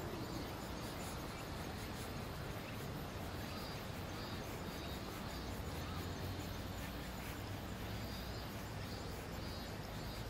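Quiet outdoor ambience: a steady low hiss with faint high chirps from distant birds or insects.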